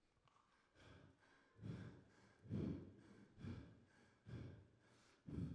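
A winded professional wrestler breathing heavily into a handheld microphone: about six short, hard breaths, a little under a second apart, starting about a second in.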